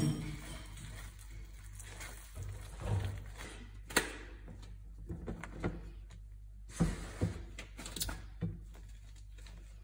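Silicone spatula stirring and scraping a thick sauce in a nonstick frying pan, with scattered knocks and clicks against the pan, the sharpest about four seconds in. A steady low hum runs underneath.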